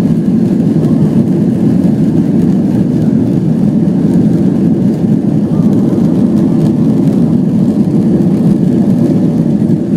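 Jet airliner's engines during take-off: a loud, steady roar that holds even, without rising or falling.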